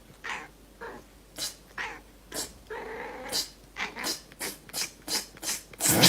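A pet animal making a run of short, sharp noises that come faster toward the end, the loudest just before the end, with one longer drawn-out call about three seconds in.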